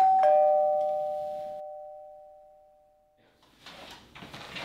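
Two-tone 'ding-dong' doorbell chime rung by a push button: a higher note, then a lower one about a quarter second later, both ringing and fading away over about three seconds.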